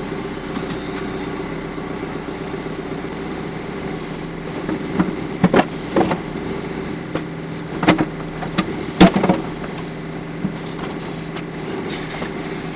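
CAT 430D backhoe's diesel engine idling steadily, with a handful of sharp metal clanks between about five and nine seconds in.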